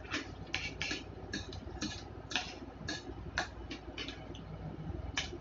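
Eating sounds: a spoon clicking and scraping on a plate while rice is scooped up and eaten, and mouth sounds of chewing. The clicks and smacks come at irregular spacing, about two a second.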